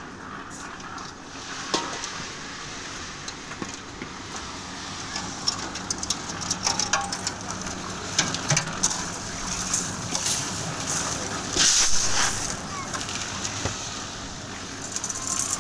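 Concrete slab work: repeated scraping and clattering of tools and concrete, busier in the second half, with the loudest burst of noise about twelve seconds in.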